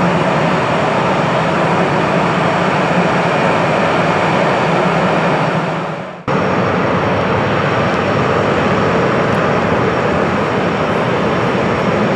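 Airbus A321 jet engines running at taxi power: a steady rumble with a faint high whine. The sound fades out about six seconds in and cuts straight back in at the same level.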